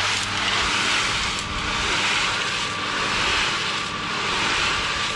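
Electric cement mixer running, its drum turning a sand-and-cement mortar mix: a steady motor hum under a swishing tumble that swells and fades about once every second and a bit.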